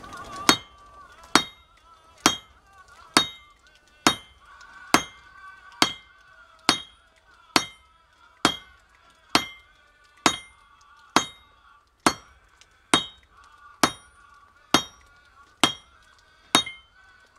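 Hand hammer striking a hot railroad spike on an anvil in a steady rhythm, a little under one blow a second, each blow a sharp metallic clink with a short ring, as the spike is forged into a knife blade.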